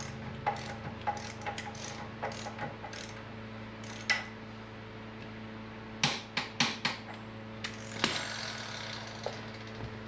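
Hand tools working on a motorcycle's rear axle and chain adjusters: scattered metallic clicks and knocks, with a tight cluster of them about six to seven seconds in, over a steady low hum.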